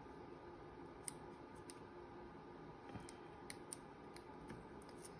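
Faint, scattered small clicks and snips of paper being cut, a handful of soft ticks spread across a few seconds over low room hiss.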